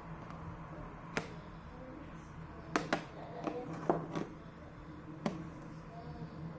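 Scattered light clicks and taps, about seven, from a mobile phone being handled and wiped with hand sanitizer and a microfiber cloth, over a steady low hum.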